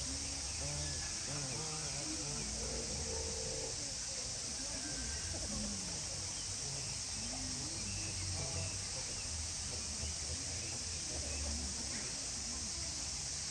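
Steady high-pitched drone of insects, with a faint murmur of distant voices.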